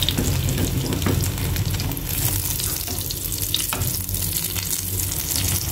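Oil sizzling steadily in a nonstick frying pan as tofu slabs pan-fry with chopped lemongrass and chilli.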